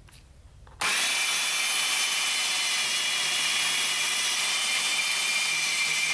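Portable band saw starting about a second in and cutting through square metal tubing, running steadily with a high whine.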